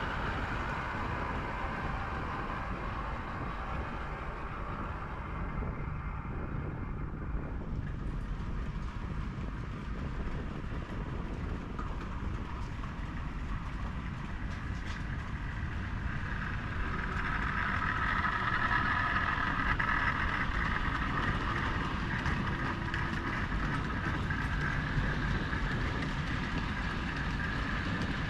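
Model train running on the layout: a steady rumbling whir that grows louder from about 17 seconds in.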